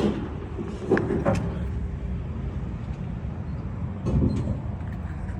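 A vehicle engine idling steadily, with a few sharp knocks and clunks: two about a second in and a heavier clunk near the end.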